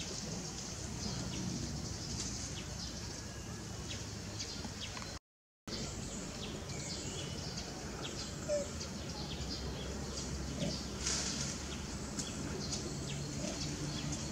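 Outdoor tropical ambience: a steady background hiss and low rumble with many short, faint bird chirps scattered through it. The sound cuts out completely for about half a second about five seconds in.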